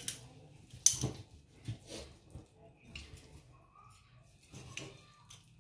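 Scattered light knocks and clicks of food and kitchenware being handled, the sharpest just under a second in.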